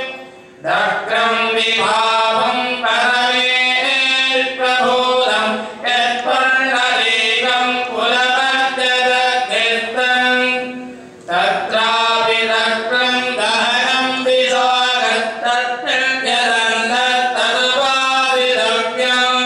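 A devotional hymn sung as a melodic chant. It comes in long phrases, with short breaks just after the start and a little past halfway.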